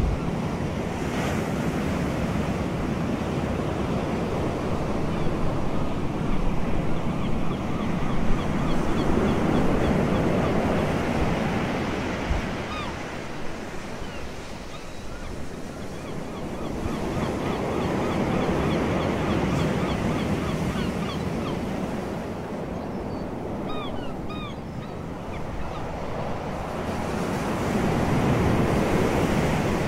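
Sea surf washing onto a sandy beach, a steady rush that swells and fades every nine seconds or so, with wind on the microphone. Faint short high chirps come now and then.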